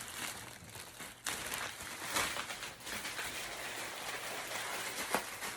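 Continuous rustling and crinkling handling noise close to the microphone, with a sharp click about five seconds in.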